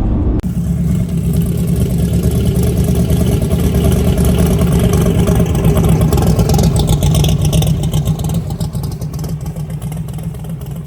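Drag car's engine running loud and steady, building over the first few seconds and then fading away in the last few seconds.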